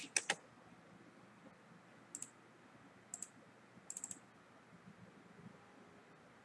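Computer mouse buttons clicking: a quick run of three clicks at the start, single clicks about two and three seconds in, and a fast double-click about four seconds in, over faint room tone.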